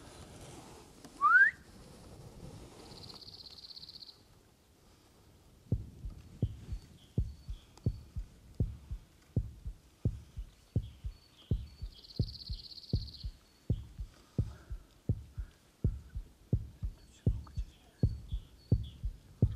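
Regular low thumps, about two a second, starting about six seconds in and running on evenly. About a second in, a short loud whistle rises sharply in pitch.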